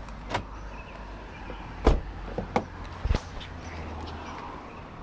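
Low steady outdoor rumble with a handful of short sharp knocks scattered through it, and no dog barking.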